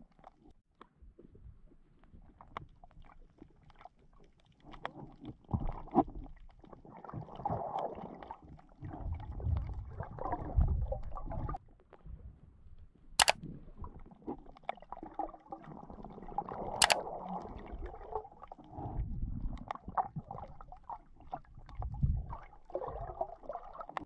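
Muffled underwater sound picked up by an action camera submerged in clear water: irregular gurgling and low rumbling swells of moving water with scattered small ticks, and two sharp clicks a few seconds apart around the middle.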